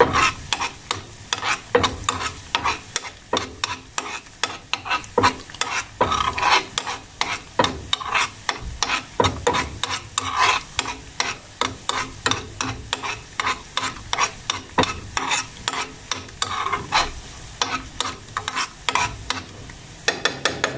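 Coconut curds (latik) frying in bubbling coconut oil in a metal pan, with a steady sizzle. A spoon stirs and scrapes against the pan in quick repeated strokes, a few a second. The curds are being browned nearly to the point of being done.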